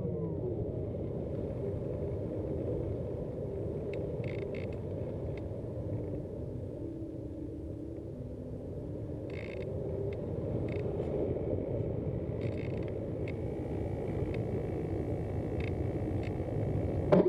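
Steady muffled rush of airflow over a HobbyKing Cloudsurfer model glider in flight, heard through its onboard action camera in the nose. A faint hum within it steps up and down in pitch, and there are a few faint clicks.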